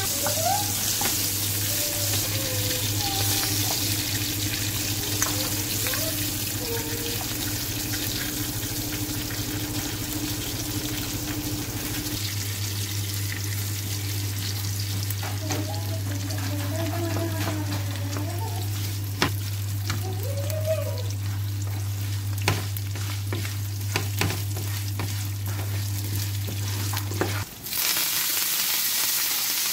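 Ingredients frying in hot oil in a pan, with a steady sizzle and stirring, and a few sharp clicks of a spatula against the pan in the second half. A steady low hum runs underneath and cuts off near the end.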